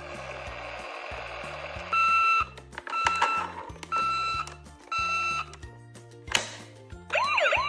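Electronic toy emergency-vehicle sounds: four short single-pitch beeps about a second apart, then a siren starting to wail up and down near the end, over background music.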